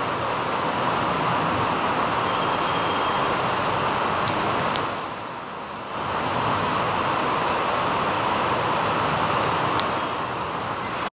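Heavy rain pouring down: a dense, steady hiss with scattered sharp ticks of drops striking nearby surfaces, easing briefly about five seconds in. It stops abruptly near the end.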